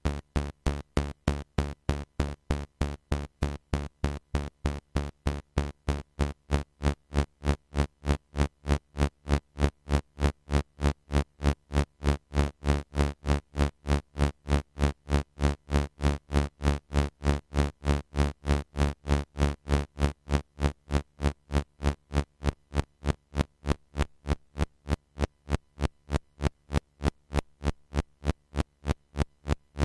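A low synthesizer tone from a Eurorack modular, gated into short, even pulses at about three a second by a Doepfer A-141-2 VCADSR envelope driving an exponential VCA. The pulses sound like a drum machine.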